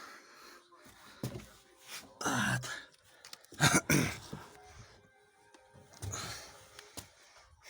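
A man clearing his throat and coughing in a few short bursts, the loudest about halfway through, with a few light handling clicks between them.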